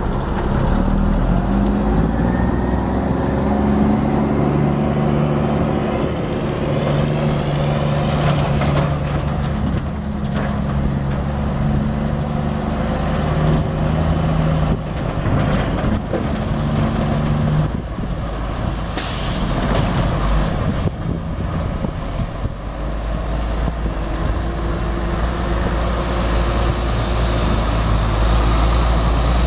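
Diesel engine of a Sterling T93 mixer truck running. It picks up speed over the first couple of seconds, holds a steady higher speed, then falls to a lower, deeper idle a little past halfway. There is a short hiss of air about 19 seconds in.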